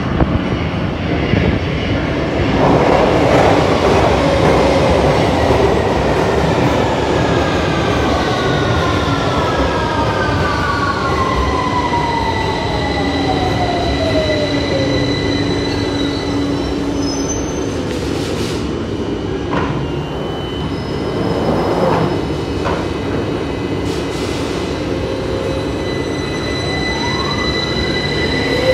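London Underground tube train running into the platform with a rumble of wheels on rail, its motor whine falling steadily in pitch as it brakes to a stop. Near the end a train's whine rises again as it pulls away.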